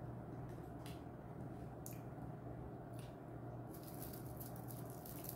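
Faint light clicks and rustles of hands handling pieces of a chocolate cake, a few single clicks at first and a denser cluster near the end, over a steady low hum.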